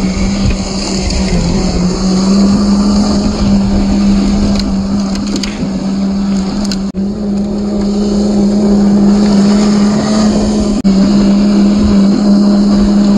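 Slowed-down sound of a 1/10-scale RC car with a brushed 540 motor driving over dry dirt: a loud, steady drone at one unchanging pitch with hiss over it. The sound drops out briefly twice, about seven and eleven seconds in.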